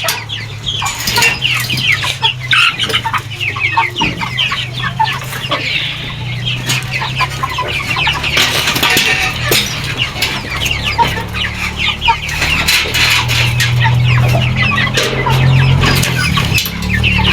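Young chickens clucking and peeping, many short high calls overlapping throughout, over a low steady hum.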